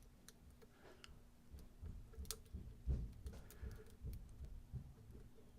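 Faint, scattered clicks and light ticks of a lock pick and tension tool working the pins of a Yale mortise lock cylinder.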